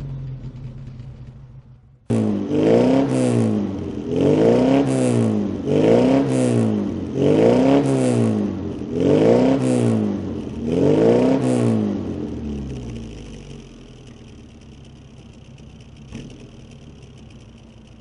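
Exhaust of a 1992 Rover Mini 1000 with its stock four-cylinder A-series engine, long centre branch manifold, 45 mm pipe, no catalyst and a large-bore single-box muffler. It idles, then is blipped six times in quick succession to around 3000–4000 rpm, each rev rising and falling, and settles back to idle near the end.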